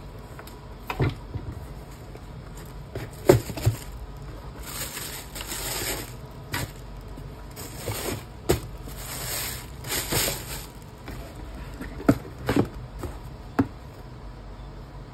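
Tissue paper rustling and a cardboard shoebox being handled, with scattered knocks and clicks, as a sneaker is laid back into the box and the box is closed. Two longer spells of crinkling come around a third and two thirds of the way through.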